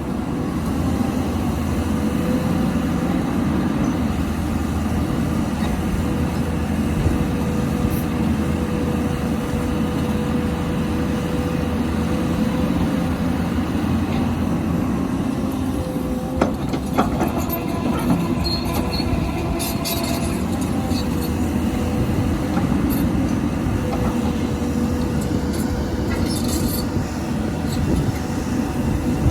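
Hydraulic excavator's diesel engine running under load with a steady hydraulic whine, a few metallic knocks about halfway through and brief high metal squeals later on.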